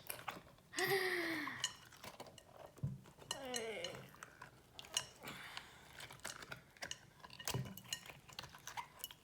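Scattered light clicks and clinks as the inside of a cut-open squishy toy is poked and handled, with two short wordless vocal exclamations, one about a second in and one around three and a half seconds in.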